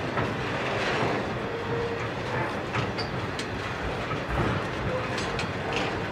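Container wagons of a freight train rolling past, a steady rumble with irregular clicks and knocks from the wheels on the rail.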